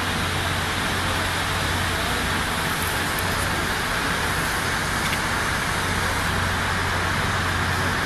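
Steady outdoor background noise: an even hiss over a constant low hum, with no distinct events.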